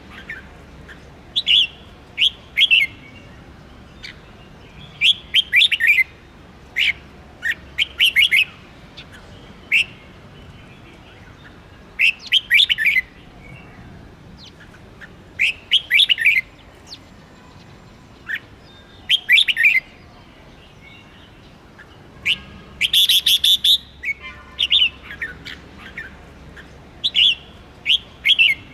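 Red-whiskered bulbul singing: short, quick whistled phrases repeated every few seconds with pauses between, one louder, harsher phrase about two-thirds of the way through.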